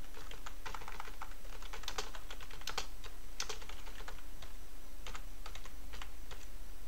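Computer keyboard being typed on: runs of irregular key clicks, with a pause of about a second midway.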